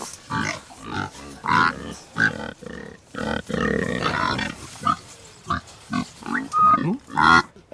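Pigs grunting and squealing in a string of short calls, with a noisier scuffling stretch about halfway through.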